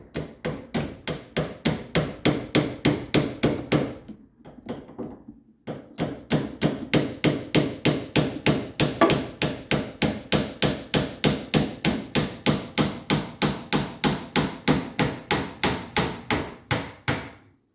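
Rapid, evenly spaced hammer blows, about three or four a second, knocking the steering column's universal-joint knuckle on a Triumph TR3 to drive it off the steering rack's splined shaft. There is a short pause after about four seconds, then a longer run of blows.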